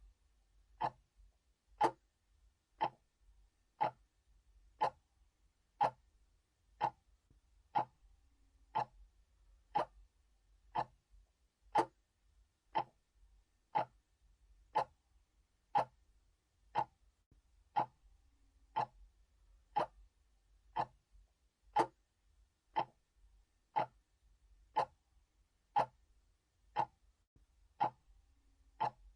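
Analog clock ticking steadily, one crisp tick a second.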